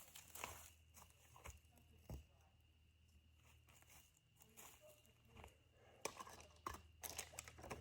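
Mostly near silence, broken by scattered light clicks and knocks, with a quick run of them near the end, typical of small camp gear being handled and set out.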